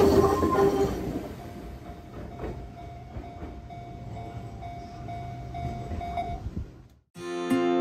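Enoshima Electric Railway (Enoden) train passing over a level crossing, loud at first and fading over the first two seconds as the last car clears, leaving a steady tone and faint rail noise. After a brief cut-out near the end, acoustic guitar music starts.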